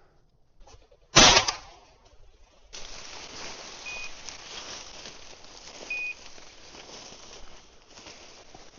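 A loud sharp bang about a second in. Then steady rustling of boots pushing through dry grass cover, with two short high beeps a couple of seconds apart.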